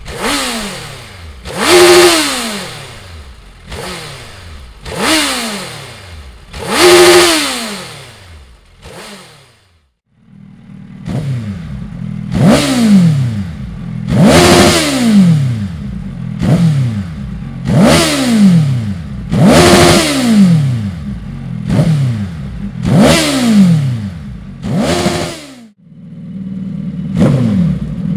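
Suzuki GSX 1300 R Hayabusa's inline-four engine, fitted with a Dominator aftermarket exhaust, revved over and over, each rev rising and falling back. In the first part there are a few long revs. After a short break about ten seconds in, the engine idles steadily between quicker blips about every second and a half.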